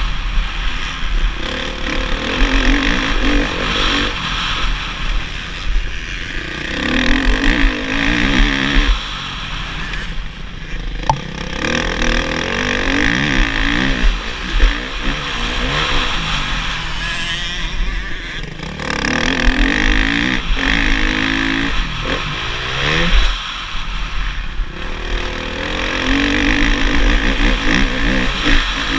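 Motocross bike engine, heard from the rider's helmet, revving up and falling off again and again as the rider accelerates and shuts off around a dirt track.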